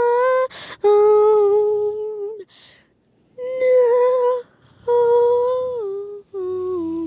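A person's voice humming or singing wordless long held notes, in several phrases with short breaths between them, each phrase dropping a step in pitch at its end.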